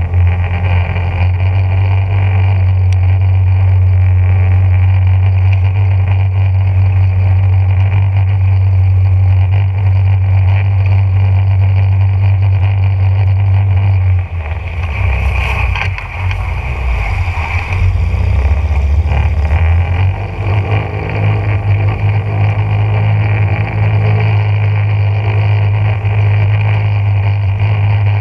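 Small boat's motor running steadily under way; about 14 seconds in it eases off and drops in pitch for several seconds, then picks back up to speed.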